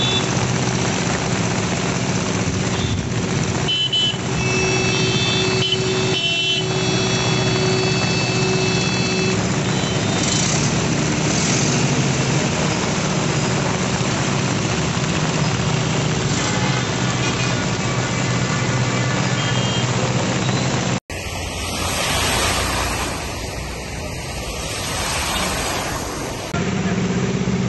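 Truck and car engines running steadily as vehicles drive slowly through deep floodwater on a waterlogged road. About three-quarters of the way through, the sound cuts abruptly to a few seconds of rushing floodwater, then the engine hum returns near the end.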